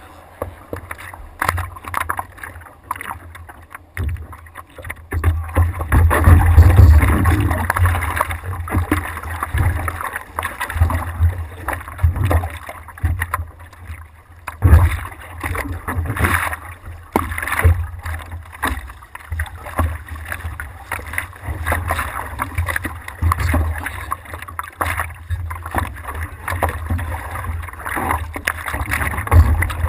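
Seawater sloshing and splashing against a surfboard as a surfer paddles with his hands, heard close up from a camera on the board's nose, with an uneven low rumble of water buffeting the housing. It is loudest about six to eight seconds in.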